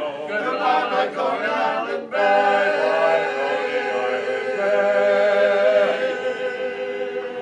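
Men's barbershop chorus singing a cappella: a few moving sung notes, then from about two seconds in the closing chord of the song, held loud by many voices, thinning and fading near the end.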